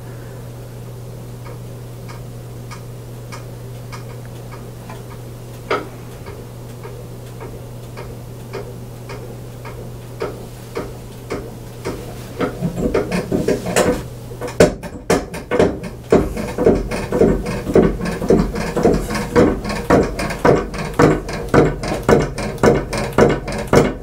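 Out-of-balance ceiling fan with all three blades on one side, driven by a 90-watt motor and swinging in wide circles: a steady hum, then from about halfway a regular knocking that grows louder as the wobble builds. The result is pretty noisy.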